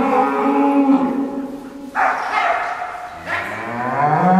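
Limousin cattle mooing: one long low moo runs through the first second or so, and a second moo rises in pitch from about three seconds in. A shorter, sharper call breaks in sharply at about two seconds.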